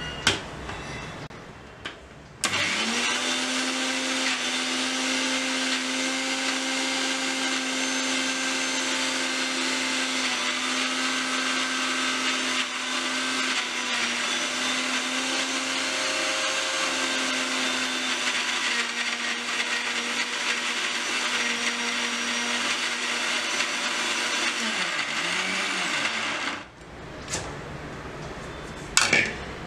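Electric mixer grinder running steadily, grinding coriander leaves, raw mango and curd into chutney in a small steel jar. It starts about two seconds in, runs with an even hum for over twenty seconds, then winds down with a falling pitch. A few short knocks follow near the end.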